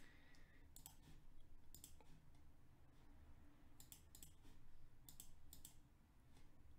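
Faint clicks of a computer keyboard and mouse, coming in small scattered clusters.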